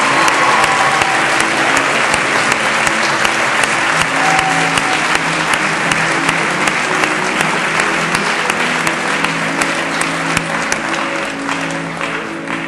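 A large crowd applauding steadily, with background music held under it; the clapping gradually thins near the end.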